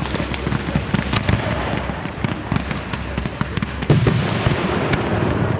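Fireworks display: a dense run of rapid pops and crackles from many bursting shells and effects, with one louder burst about four seconds in.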